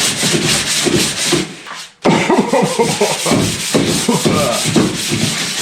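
Sanding on the inside of a car body, a dense rasping hiss with quick, even strokes. It breaks off briefly about two seconds in and starts again.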